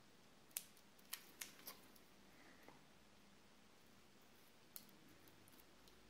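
A few faint sharp clicks and snips from a double-edged razor blade trimming excess tape off two taped-together razor scales: four close together in the first two seconds, one more near the end. Otherwise near silence.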